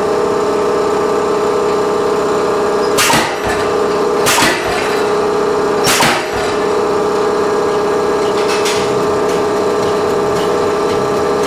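MZ75 pneumatic power hammer landing single blows on the steel slip hook: three loud strikes about three, four and a half and six seconds in, and a fainter knock near nine seconds. Under them runs the steady drone of the air compressor that feeds the hammer.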